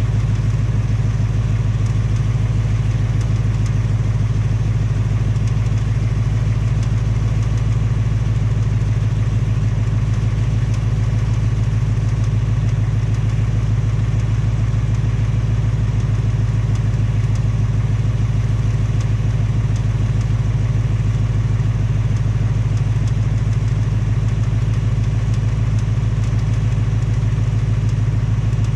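2018 Mustang GT's 5.0 L Coyote V8 idling steadily. This is the replacement engine, which the owner says makes a tapping/knocking sound, the same tick that on the first engine turned out to be piston slap and cylinder wall damage.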